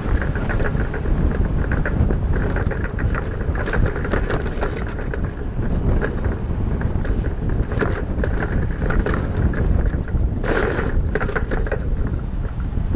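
Ford bus under way: steady engine and road rumble with frequent rattles. A short, louder rush of noise comes about ten and a half seconds in.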